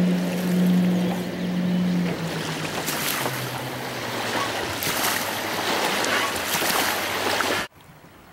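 Aluminium boat's engine running steadily, then throttling back about two seconds in, its hum dropping in pitch, over a loud rush of water. The sound cuts off suddenly near the end.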